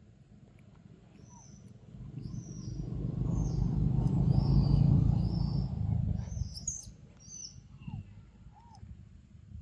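Birds chirping in short, high calls, over a low rumble that swells for a few seconds and then fades away. A few lower, arching calls come near the end.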